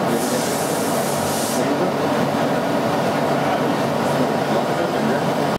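Machine-shop machinery running with a steady, loud, even noise, with a hiss in the first second and a half.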